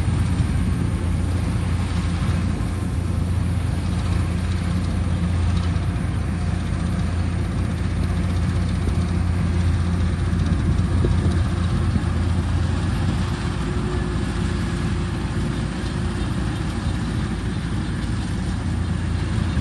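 Kubota rice combine harvester running steadily: a continuous low engine drone with machinery noise over it, with no change in speed.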